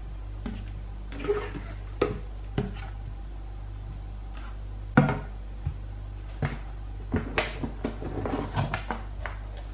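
Spatula knocking and scraping against a stainless steel sauté pan while stirring a thick cream sauce, in scattered strokes with the loudest knock about halfway through and a quick run of strokes near the end, over a steady low hum.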